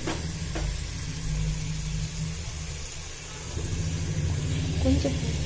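Steady low motor-like hum, with two light knocks of a spoon against a mixer-grinder jar near the start as ginger-garlic paste is scooped out.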